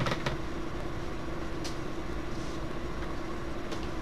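Steady low room hum with a faint tone in it, broken by a few light clicks and knocks from someone moving about the room.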